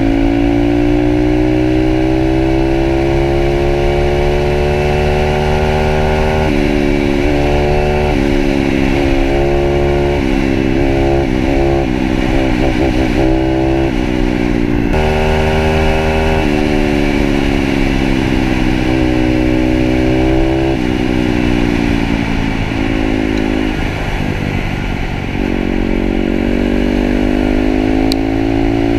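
Pitster Pro 160cc pit bike's single-cylinder four-stroke engine running under way, heard from on the bike. The engine note slowly rises and falls, with several sudden changes in pitch through the middle.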